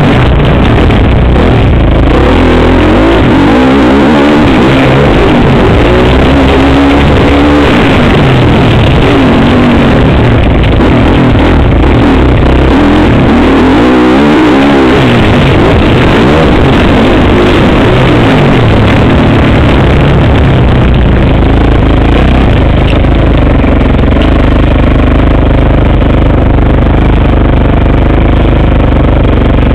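Motocross bike engine heard from a camera mounted on the bike, loud and distorted, revving up and down as the rider works the throttle round the track. From about twenty seconds in it settles to a steadier, lower running as the bike slows.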